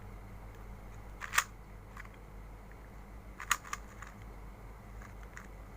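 A few sharp plastic clicks over a steady low hum: a loud one about a second and a half in and a quick pair a couple of seconds later.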